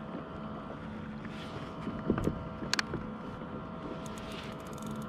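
Water lapping against a plastic fishing kayak's hull with wind on the microphone, broken by a few sharp knocks about two to three seconds in and short runs of fine clicking from the rod and spinning reel during a fight with a fish.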